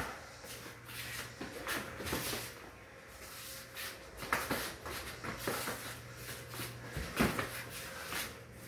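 Kickboxing sparring: feet shuffling and stepping on a concrete floor, with blows landing as irregular thuds and scuffs. The loudest hits come about four and a half and seven seconds in, over a faint steady hum.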